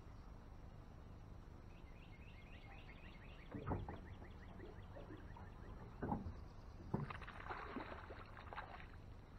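A hooked bass thrashing and splashing at the water's surface for about two seconds near the end, after a few dull thumps.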